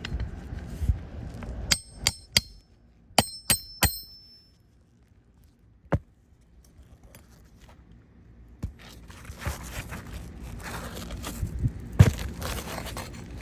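Metal roofing tool clinking sharply against metal six times, in two quick groups of three, each strike ringing briefly. About nine seconds in it changes to scraping and rustling against asphalt shingles, as a rusted roofing nail is worked at under the shingles.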